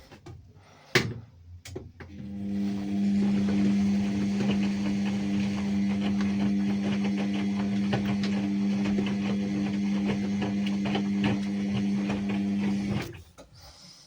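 Ariston washing machine running: a steady motor hum shot through with rapid clicking and rattling. It starts after a sharp click about a second in and cuts off abruptly near the end.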